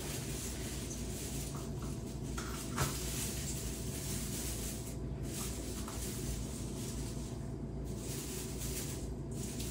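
Faint rustling of an artificial Christmas tree's plastic branches as they are handled and spread out, coming and going over a steady low hum, with a single sharp click about three seconds in.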